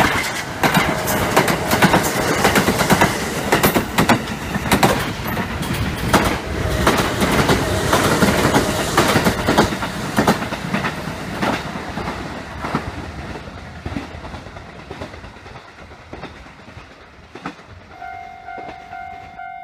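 Kintetsu electric train passing close by, its wheels clattering rapidly over the rail joints, the sound fading away over the last several seconds as it recedes. Near the end a level-crossing bell starts ringing in a steady, regular beat.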